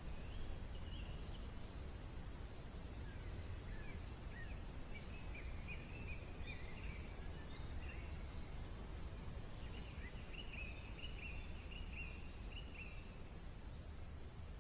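A small songbird twittering in quick high chirps, in two longer runs, over a steady low rumble.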